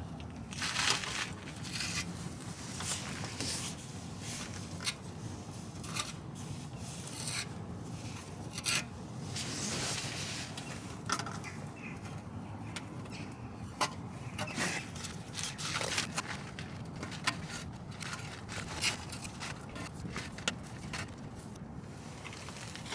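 Intermittent scraping and rubbing, with scattered sharp clicks, as a tool works a thick paste of fire cement mixed with fibres.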